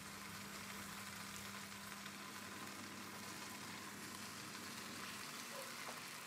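Quiet room tone: a faint steady hiss with a low hum that stops about five seconds in.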